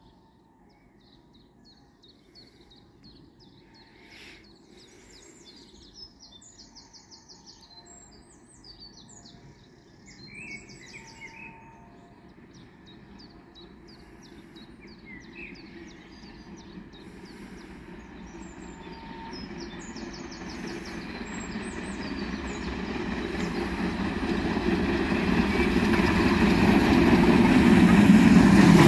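Birds chirping and singing, then an approaching steam locomotive, DB class 64 tank engine 64 419, working a train: its exhaust and running gear grow steadily louder through the second half and are loudest as it comes close near the end.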